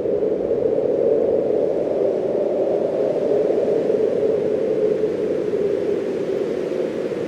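Blizzard wind blowing steadily, a hollow rushing noise that swells a little now and then.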